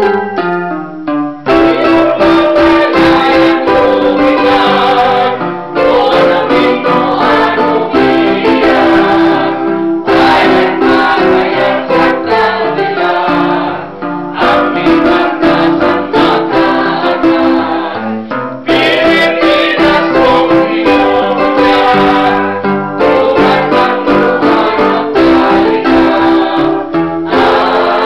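A small choir of mostly women singing together at a rehearsal, accompanied by an electronic keyboard. The song goes in phrases with a short break about every four seconds.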